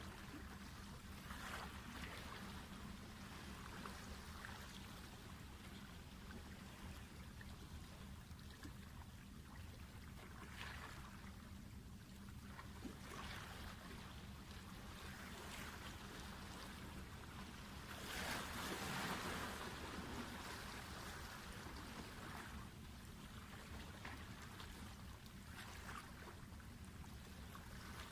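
Faint sea water washing against breakwater rocks in soft swells, the strongest about two-thirds of the way through, over a steady low hum.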